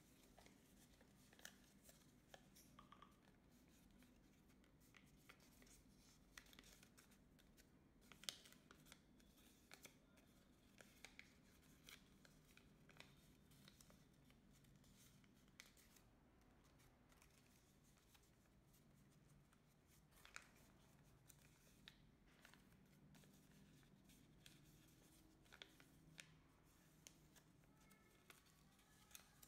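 Faint crackling of a sheet of origami paper as hands fold and crease it, with many small scattered crackles over a low steady hum.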